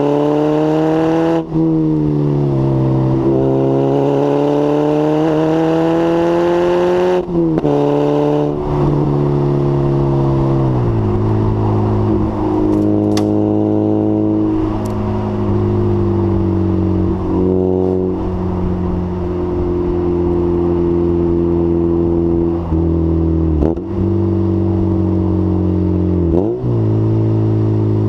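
Lotus Elise 111S's 1.8 VVC four-cylinder engine through a Bell & Colvill exhaust with a decat pipe, pulling hard with its pitch climbing and then dropping sharply at gear changes. About ten seconds in it comes off the throttle and holds a steady cruising note, with a couple of brief dips near the end.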